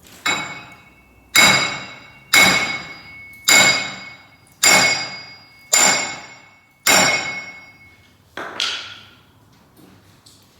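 Hammer striking a steel part eight times at about one blow a second, each blow ringing out metallically. The last blow is weaker and duller.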